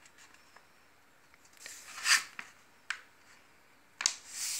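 Sheet of colour paper rustling as hands fold and smooth it on a tabletop: two brief swishes, about two seconds in and near the end, with a small click between.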